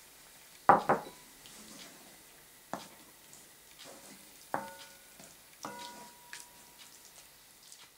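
Wooden spatula stirring cream sauce in a frying pan, knocking against the pan a few times, the loudest pair about a second in. Some knocks leave a brief metallic ring from the pan.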